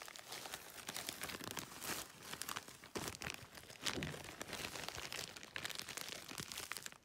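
Thin plastic packaging bags crinkling and rustling as they are handled, in irregular faint crackles that cut off suddenly at the end.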